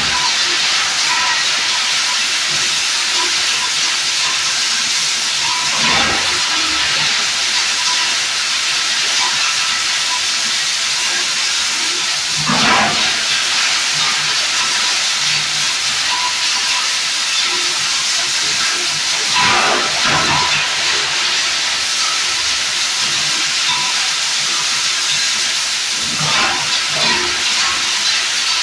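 Industrial plastic lumps grinder running loud and steady while grinding plastic lumps, with a brief louder surge about every six to seven seconds.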